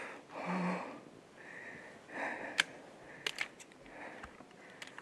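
A person breathing hard close to the microphone: several short, breathy huffs and sniffs, the strongest near the start, with a few sharp clicks in the middle.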